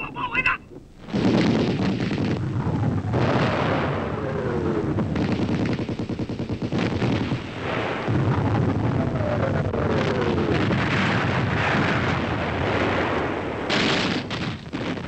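Battle sound effects: continuous rapid machine-gun and rifle fire with explosions, and two falling whistles of incoming shells partway through.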